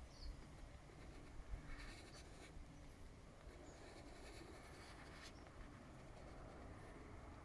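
Near silence, with faint scratching where a lit cigarette tip is pressed against an inflated vinyl beach ball, burning small holes in it; two short stretches of soft hiss come about two and five seconds in.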